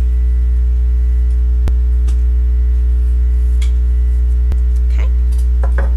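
Loud, steady electrical mains hum, with two or three sharp clicks and faint brief scratches of a pencil tracing around a bucket on paper.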